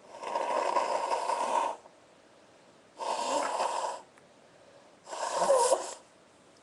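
A person blowing their nose hard into a handkerchief three times: one long blow of nearly two seconds, then two shorter blows. The last is the loudest, with a honking pitch running through it.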